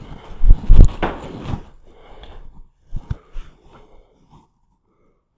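Footsteps going down a staircase: a quick run of loud thuds in the first second and a half, then a few lighter steps about three seconds in.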